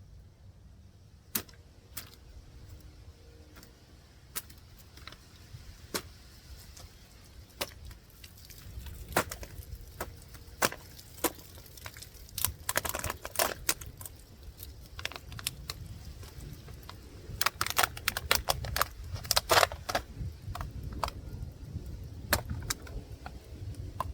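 Cheap stainless-steel folding knife being tested on a cut: sharp metallic clicks and knocks of the blade striking and cutting, scattered at first, then in quick flurries around the middle and again about three-quarters in, over a low background rumble. The blade is dull and does not chop or cut through well.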